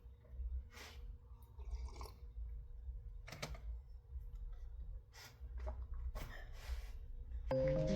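Faint, scattered clicks and knocks over a low steady hum, then background music starts near the end.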